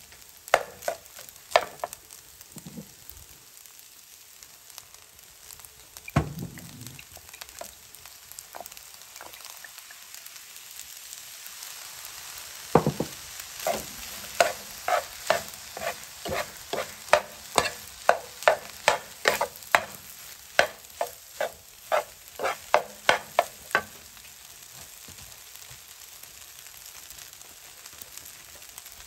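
Fried rice sizzling in a frying pan as a metal spatula and spoon stir and turn it, the metal clicking and scraping against the pan. In the middle the strokes come quickly, about two a second, then settle back to a quieter sizzle.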